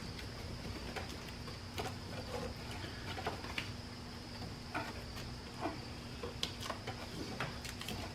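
Faint scattered clicks and rustles of hands working hoses and heat-wrap tape in an engine bay, over a steady high-pitched whine.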